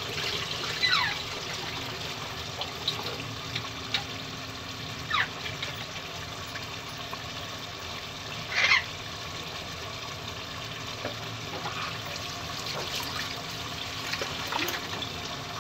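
Steady sizzling and bubbling of meat masala cooking in an open pressure cooker on the flame. A few short, high chirps and clinks sound over it, the loudest near the middle.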